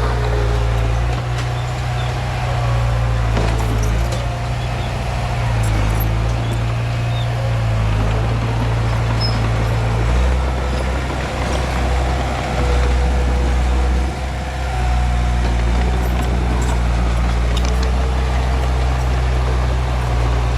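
Komatsu D31P bulldozer's diesel engine running steadily under working load, its pitch shifting as the load changes and dipping briefly near the middle, with a few sharp metallic knocks.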